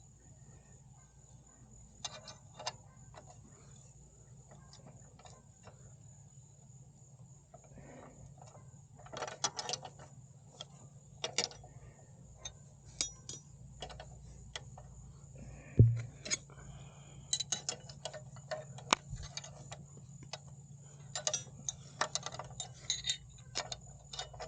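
Irregular metallic clicks and taps of hand tools, most likely wrenches, on the nut and bolt of a motorcycle kickstand, with one sharper knock about 16 seconds in.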